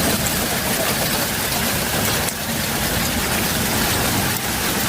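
Steady noise of traffic in a heavy downpour: vehicle engines idling under an even hiss of falling rain or hail.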